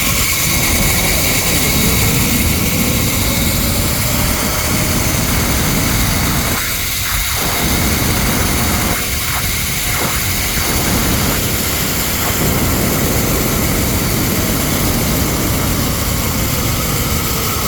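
Zipline trolley running along the steel cable: a loud, steady whir of pulley and cable mixed with wind rush, its faint pitch rising and then falling as the ride speeds up and slows.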